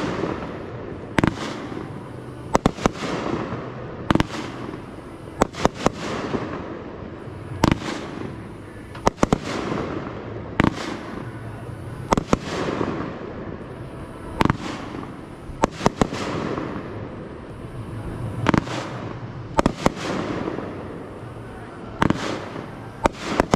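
Aerial fireworks display: sharp bangs every second or two, often in quick pairs or clusters, with a noisy crackling wash between them.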